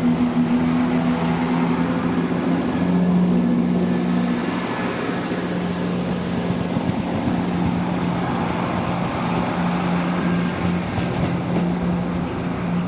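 Diesel passenger train engine running with a steady low drone, one of its tones dropping away about four seconds in.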